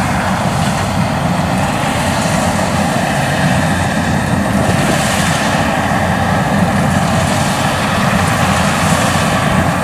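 Yanmar YH850 combine harvester running steadily as it drives through standing rice, cutting and threshing, its engine and machinery a continuous even noise.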